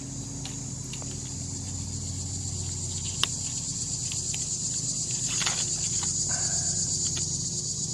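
A steady, high-pitched chorus of insects, cricket-like, with a fine, even pulse, over a low steady hum. One sharp click sounds about three seconds in.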